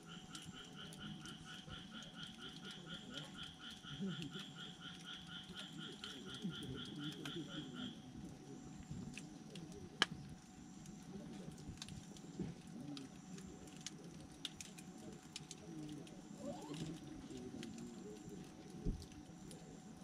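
Wood campfire burning, with scattered crackles and a sharp pop about halfway through. For the first eight seconds an animal calls in the background with an even, rapidly pulsed trill.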